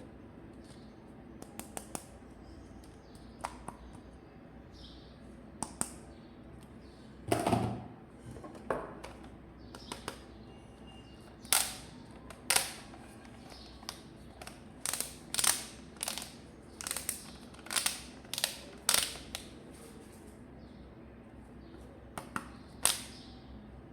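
Plastic toy parts being handled and clicked close to the microphone: irregular sharp clicks and snaps, a heavier knock about seven seconds in, and a quick run of clicks in the middle.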